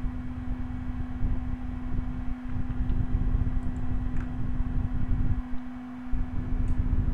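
Steady low rumble with a constant hum: the background noise that runs under the whole recording. It drops away briefly twice, about two and a half seconds in and again near the end.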